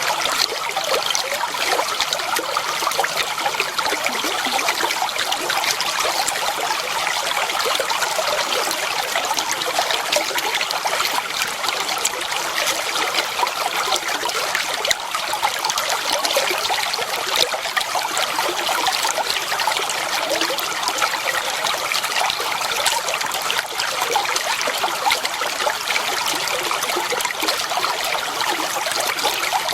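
Clear water flowing and trickling steadily over stones in a shallow stream, a constant babble of small splashes.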